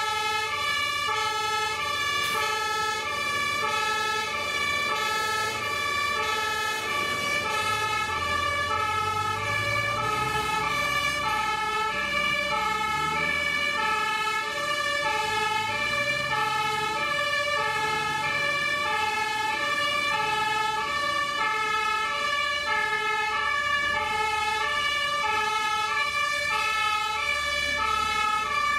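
A German two-tone emergency horn (Martinshorn) sounding its alternating high–low pattern steadily. Under it, a heavy truck's engine rumbles and rises in pitch about eight to twelve seconds in as the truck pulls away.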